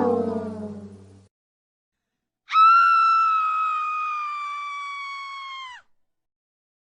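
A brass sound-effect note fades out. After a short silence comes a single high-pitched scream, held about three seconds while its pitch slowly sinks, then cut off abruptly.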